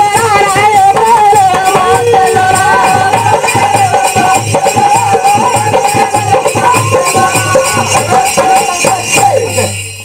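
Music: a wavering melody line over fast, even percussion, fading out just before the end.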